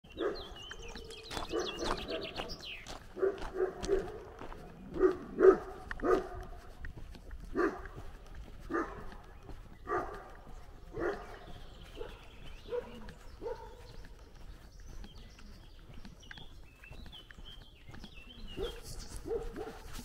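A dog barking repeatedly, roughly once a second, loudest about five seconds in and fainter in the second half. Small birds chirp at the start and again later on.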